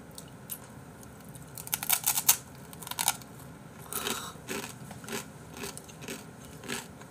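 Close-miked eating sounds: chewing with crisp crunching bites in short clusters, the loudest about two seconds in and again around three and four seconds.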